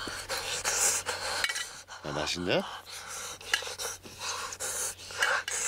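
Ramyeon noodles slurped with chopsticks from a small metal pot, the chopsticks clinking against the pot between slurps. A brief rising voice-like sound comes about two seconds in.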